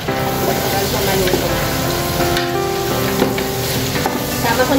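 Food frying and sizzling in a pan as it is stirred, with background music of held notes playing over it.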